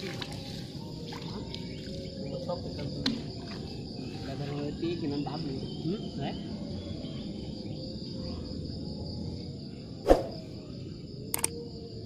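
Steady insect chirring over indistinct talk, with a single sharp knock about ten seconds in.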